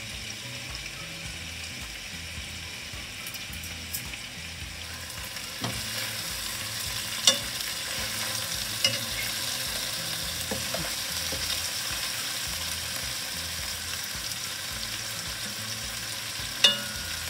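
Honey-glazed chicken pieces sizzling as they fry in a pan, a steady hiss that grows louder about five seconds in. A few sharp clicks sound over it.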